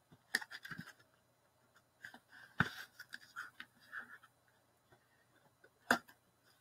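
Knife tip scratching along packing tape on a cardboard shipping box: short scrapes separated by quiet gaps, with three sharper clicks.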